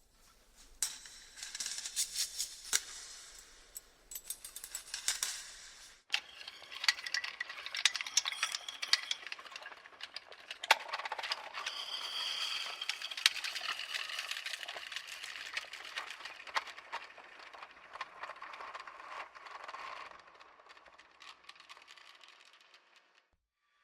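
Chains rattling and jangling in many quick metallic clinks, treated with added reverb and distortion, in two stretches with a brief break about six seconds in.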